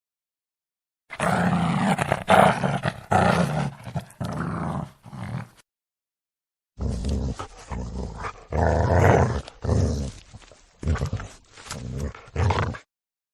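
Angry dog barking and growling in two runs of repeated rough calls, about four and six seconds long, with a second of dead silence between them.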